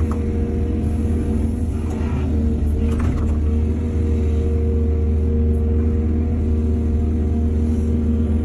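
Excavator's heavy diesel engine running steadily with a deep, even rumble, with brief louder noises about two and three seconds in.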